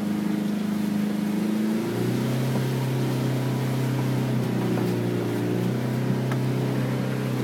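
Pickup truck engine running as it drives slowly along a dirt forest trail, heard from inside the cab. About two seconds in, the engine note drops to a lower pitch and stays steady.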